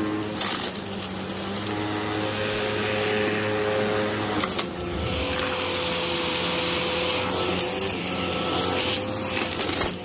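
Hoover WindTunnel upright vacuum running steadily as it is pushed over a thick shag rug, with a couple of brief clicks, about half a second in and again midway, from debris being sucked up.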